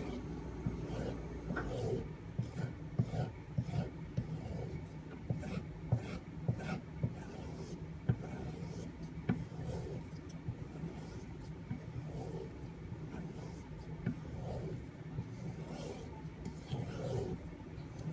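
D2-steel knife blade being stropped: repeated light rubbing strokes along the strop, with small clicks and taps as the blade is set down and turned.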